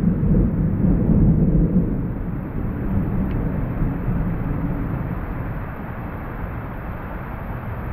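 Thunder rumbling, loudest in the first two seconds and then slowly dying away, over a steady hiss of rain.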